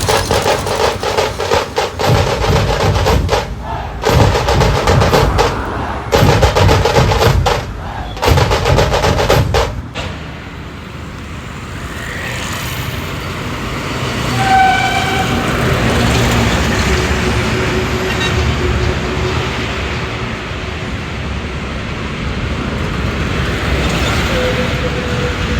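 A loud, dense clatter of rapid sharp strokes for about ten seconds, then steady road-traffic noise with a short vehicle horn toot about midway.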